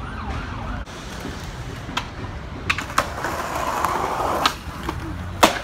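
Skateboard wheels rolling over concrete, with several sharp clacks of the board; the loudest clack comes near the end.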